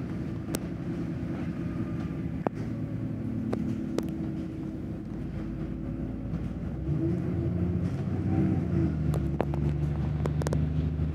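Bus engine running as the bus drives along, heard from inside the bus; the engine note shifts and gets louder about seven seconds in. A few sharp clicks and rattles sound over it.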